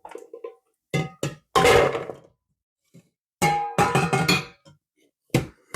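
Cooking pot and dishes clanking and clattering while freshly drained boiled peanuts are handled. There are two knocks about a second in, a longer clatter after them, a quick run of clanks a little past the middle, and one last knock near the end.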